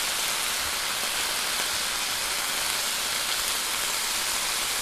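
Thin strips of pork sizzling steadily in oil in an electric skillet as they brown.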